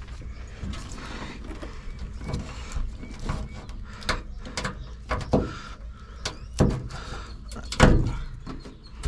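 Clunks, knocks and rustling as a truck's wiring harness and its plastic connectors are pulled and worked loose by hand, with a few short squeaks. The knocks come every second or so and grow louder, the loudest near the end.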